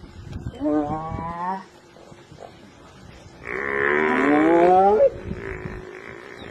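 Two drawn-out animal calls at a hyena kill. The first is short and wavering, about half a second in. The second, about three and a half seconds in, is louder and rough, with a pitch that rises and then cuts off.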